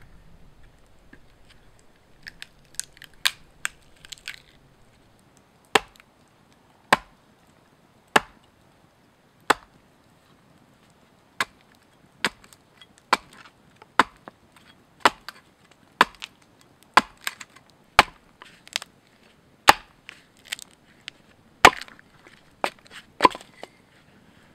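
Hand axe striking a short log held upright, splitting it: sharp wooden knocks, a few quick lighter taps at first, then strong single strikes about once a second.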